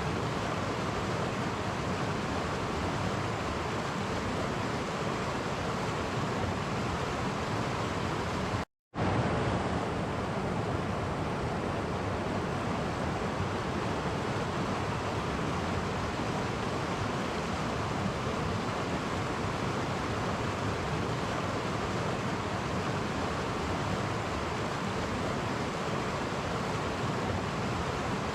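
Clear stream flowing over small cascades, a steady rush of water. It cuts out to silence for a split second about nine seconds in, then carries on unchanged.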